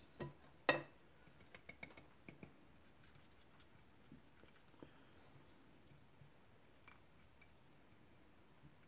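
Faint, scattered clicks of a wire whisk and a small china bowl touching a ceramic mixing bowl as cornstarch is tipped into orange juice, with one sharper click under a second in.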